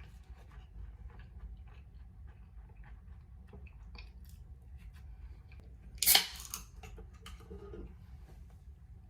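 Scattered small clicks and handling noises over a low steady hum, with one much louder noisy burst lasting about half a second roughly six seconds in.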